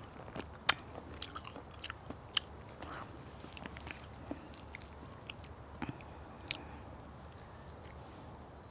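A person chewing fresh, crunchy guava close to the microphone: irregular sharp crunches and mouth clicks, a few louder ones standing out.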